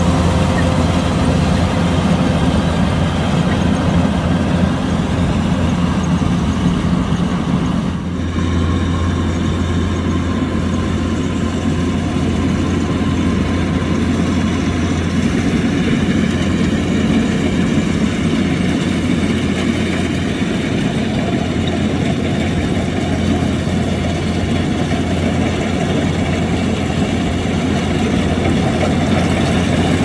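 Kubota DC-105X combine harvester's diesel engine running steadily, with a short dip and a change in its tone about eight seconds in.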